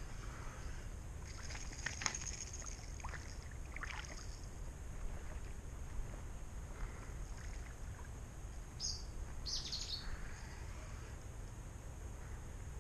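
Riverside ambience: a steady low rumble of wind and flowing water, with a few short high bird chirps, a cluster a second or so in and a pair about nine to ten seconds in.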